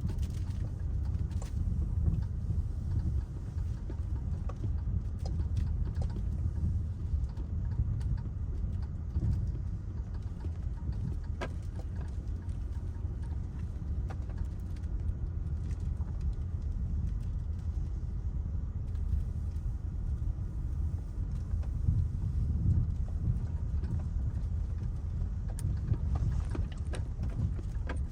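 Steady low rumble of road and engine noise heard inside the cabin of a moving Mitsubishi Outlander, with a few faint clicks now and then.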